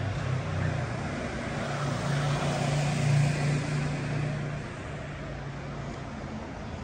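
A motor vehicle passing: a low engine hum that grows to its loudest about three seconds in and fades by about five seconds, over steady street noise.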